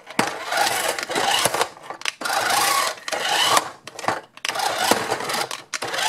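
Paw Patrol Marshall remote-control fire truck's small electric drive motors whirring in several stop-start runs as the remote's buttons are pressed, the toy driving and popping a wheelie.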